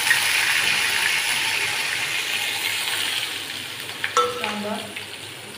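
Hot oil with mustard seeds and cumin sizzling loudly in a steel kadhai as chopped onion and curry leaves are dropped in. The sizzle starts suddenly and slowly dies down as the oil cools around the onion.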